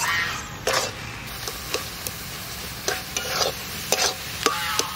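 Metal spatula stirring and scraping a thick coconut-and-jaggery filling in an aluminium wok, in a series of irregular scrapes and taps against the pan, with the mixture sizzling underneath as it cooks down to nearly done.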